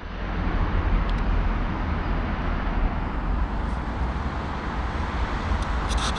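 Steady outdoor background noise, a strong low rumble under an even hiss with no distinct event. A few faint short clicks come near the end.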